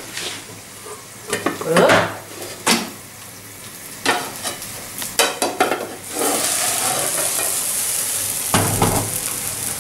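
Metal frying pan and lid knocking and clattering as a courgette frittata is turned over with the lid. About six seconds in, a steady sizzle starts as the uncooked side goes down into the hot pan.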